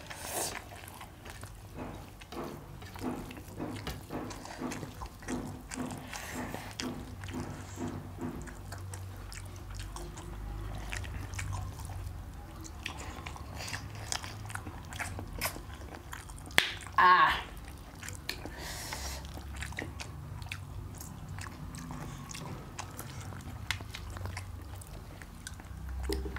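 People chewing and biting mouthfuls of rice and mutton curry eaten by hand, close to the microphone, with many small wet mouth clicks. About seventeen seconds in there is a brief, louder pitched sound.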